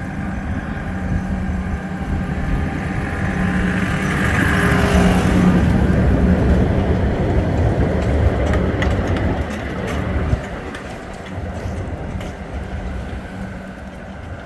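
A vehicle passing close by: a steady hum with a low tone that rises to its loudest about five seconds in and then fades, with light clicks in the later part.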